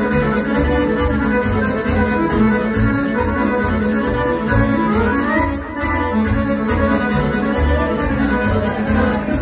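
A dance band playing Balkan folk kolo music, led by an organ-like electronic keyboard melody over a quick, steady beat and pulsing bass.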